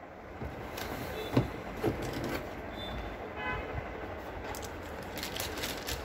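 Cardboard motherboard box being opened and handled, with sharp knocks about a second and a half in and crinkling of the board's anti-static bag near the end, over steady background noise. A brief high tone sounds about three and a half seconds in.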